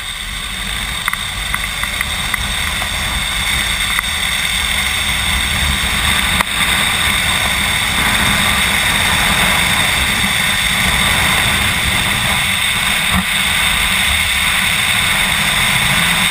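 Zip line trolley running fast along the steel cable with a steady high whine, mixed with wind rushing over the microphone. It grows louder over the first few seconds as the ride picks up speed, then holds steady.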